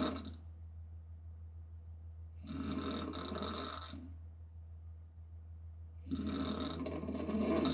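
A woman snoring hard with her mouth open: the end of one snore at the start, a full snore a few seconds in, and another starting near the end, about three and a half seconds apart. A steady low hum runs underneath.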